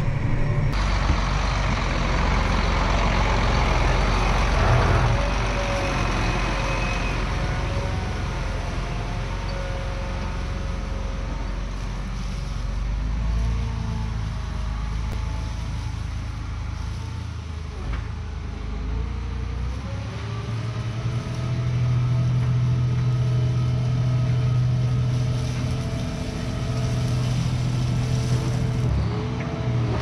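Diesel engine of a large farm tractor running steadily under load while pulling a disc harrow through a field. The engine note shifts around the middle and again about two-thirds in.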